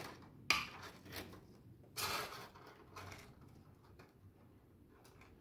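A few brief handling noises: a sharp click about half a second in, then short rustles and scrapes, the loudest about two seconds in, from a jar and utensils being moved about.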